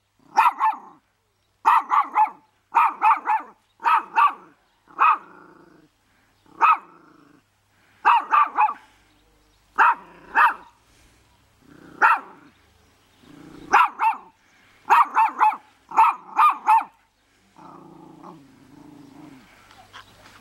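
Small Yorkshire terrier-type dog barking in quick volleys of two to four short barks, over and over. Near the end the barking stops and gives way to a softer, lower sound.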